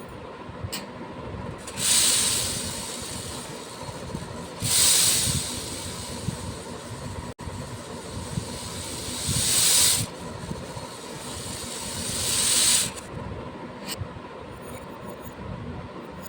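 Small beads poured in a stream, a hissing rattle that comes four times, each pour lasting a couple of seconds. The first two start suddenly and trail off, and the last two build up and stop suddenly.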